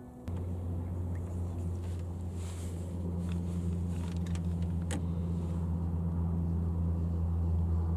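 Steady low motor or engine hum that starts abruptly and grows slightly louder, with a few faint clicks.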